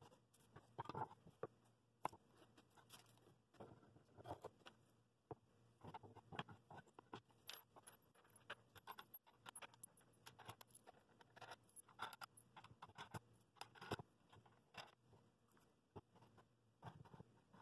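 Faint, irregular clicks, taps and small scrapes of hands working a homemade bowl-clamping press: a round wooden top board is fitted over threaded steel rods and wing nuts are threaded on.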